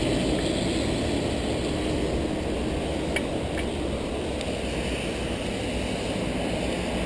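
Steady rushing noise of a bicycle ride on wet pavement, heard through a chest-mounted camera: air and tyre noise on the wet road, with a couple of faint ticks about three seconds in.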